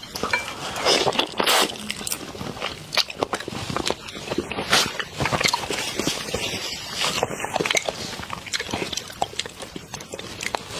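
Close-up eating of whole shrimp: irregular crunchy bites and wet chewing of the shell-on shrimp, with crackling clicks. Near the end come the crackles of a shrimp's shell being pulled off by hand.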